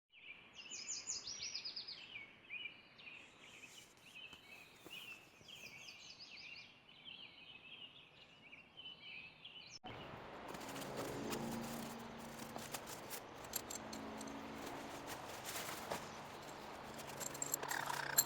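Songbirds singing together, a busy run of quick chirps and trills. About ten seconds in the sound cuts abruptly to a steady rushing noise with scattered clicks and a faint low hum.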